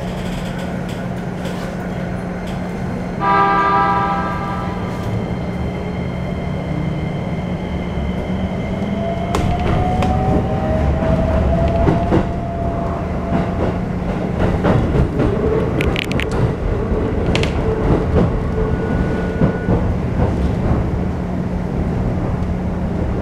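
Keikyu New 1000 series train with a Toyo IGBT-VVVF inverter, heard from inside the car as it pulls away. A horn sounds once, for about a second and a half, about three seconds in. From about eight seconds the inverter and traction motors give a rising whine that levels off as the train gathers speed, and wheel and rail-joint noise grows over a steady low hum.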